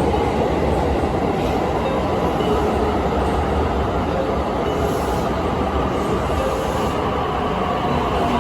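JR East 255 series electric train running along an underground station platform: a steady, loud rumble of wheels and running gear with a few faint steady tones.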